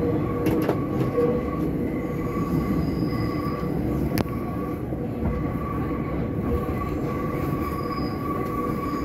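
Nankai 2300-series 'Zoom Car' electric train rounding a tight mountain curve, its wheels squealing against the rail in several sustained high tones over a steady running rumble, heard inside the passenger carriage. A single sharp click sounds about four seconds in.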